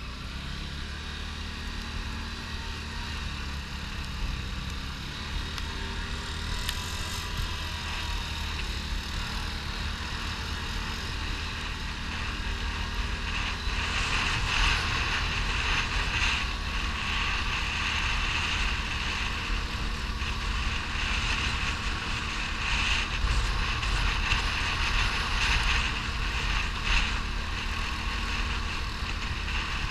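Quad bike (ATV) engine running steadily under way, with the rumble and hiss of tyres on loose gravel and sand. The hiss grows louder about halfway through.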